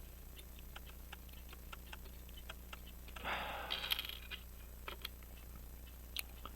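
Faint, quick small ticks, several a second, with a short breathy hiss about three seconds in.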